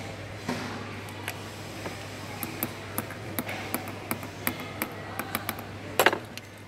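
Small jeweller's hammer tapping a setting tool to secure gemstones in a jewellery piece: a run of light, quick metallic taps, thickest in the second half, with a louder knock near the end.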